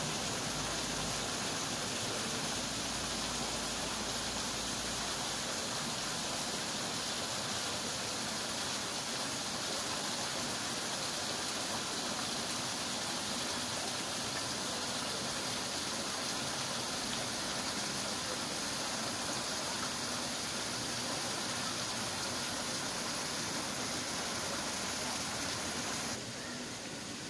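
Water rushing steadily down a small rock-lined stream and spilling over a stone ledge. It drops away suddenly near the end.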